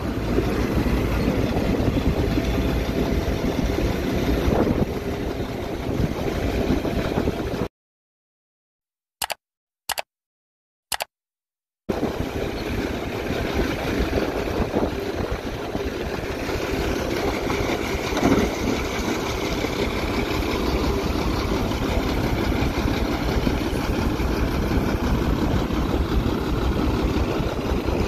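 Heavy diesel construction machinery engines running steadily. The sound cuts out completely for about four seconds in the middle, broken only by three short blips, then resumes.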